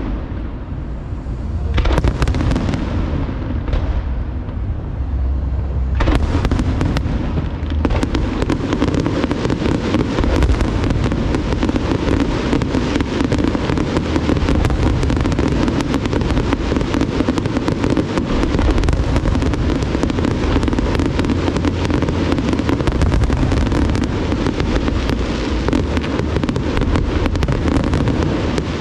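Fireworks display going off without a break: dense, continuous crackling and popping over deep booming shell bursts. After a few separate bangs in the first seconds, it builds into an unbroken barrage about six seconds in.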